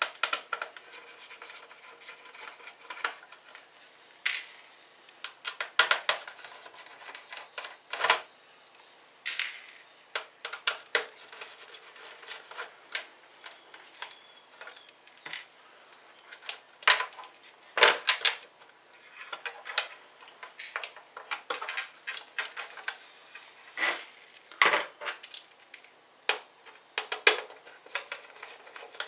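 Irregular clicks, taps and scraping of hard plastic laptop parts and small tools being handled while an ASUS F541 laptop is taken apart.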